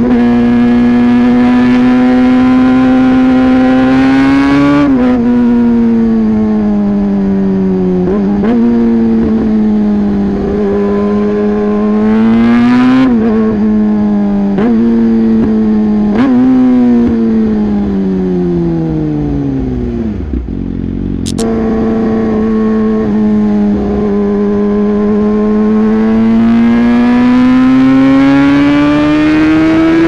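Yamaha YZF-R6 inline-four engine through an SC-Project aftermarket exhaust, under way. The revs climb and drop with several quick upshifts. Then they fall away steadily as the bike slows, pick back up after a sudden jump, and rise again toward the end.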